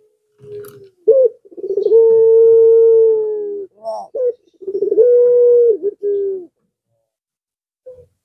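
Ringneck dove of the long-voiced 'pelung' type cooing: a few short notes, then a long steady coo of about two seconds, more short notes and a second, shorter long coo. It falls quiet for the last couple of seconds.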